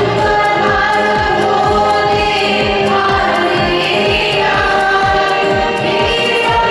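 A group of young voices singing a song together over a steady, quick drum beat.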